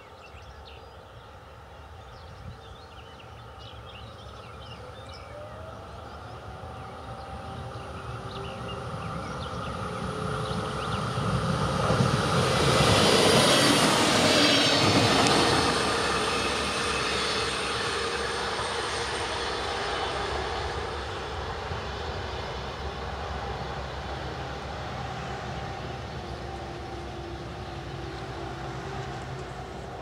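Alstom Coradia LINT 27 diesel railcar approaching, passing close by over a bridge and receding: its engine and wheels on the rails grow louder, are loudest about halfway through, then fade slowly. Distant fire-alarm sirens sound a steady wail, one rising into its tone near the start.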